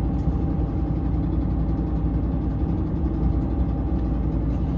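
Steady low engine drone of a JR Shikoku 2000 series diesel railcar, heard inside the passenger cabin.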